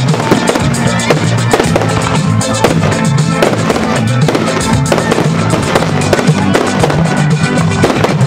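Aerial firework shells bursting and crackling in rapid succession, many bangs close together, with music playing alongside.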